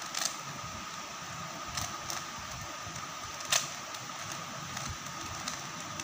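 Plastic 3x3 Rubik's cube being turned by hand: scattered short clicks of the layers snapping round, the loudest about three and a half seconds in, over a steady hiss.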